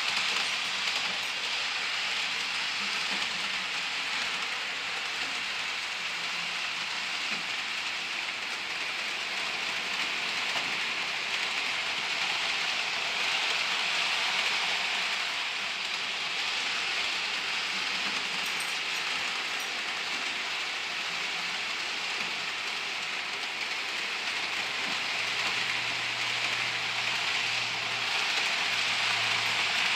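HO scale model freight train running on the layout, pulled by a Life-Like 0-4-0 steam switcher: a steady hissing rattle of the cars' wheels on the rails. A low hum comes in near the end.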